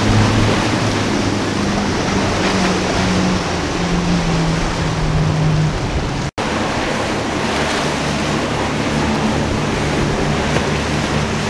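Motorboat engines running at speed over the hiss of wake spray, surf and wind on the microphone. The engine hum drops in pitch in steps as the first boat passes, the sound cuts out for an instant about six seconds in, and then a second boat's twin outboard motors hold a steady hum.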